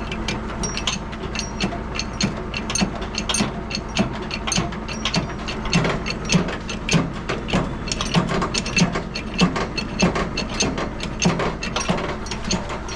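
Hydraulic bottle jack being pumped with a steel bar handle: a steady run of sharp metallic clicks and clanks as it jacks up the body of a loaded truck.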